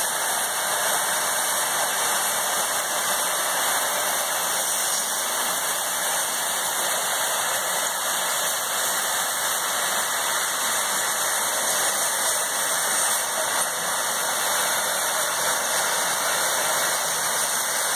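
Air casters under a yacht's cradle giving a steady, loud hiss of compressed air rushing out from under them as the load floats across the concrete floor.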